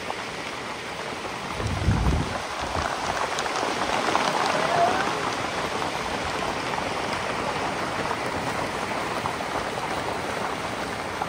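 Steady rain falling and pattering, with a brief low rumble about two seconds in.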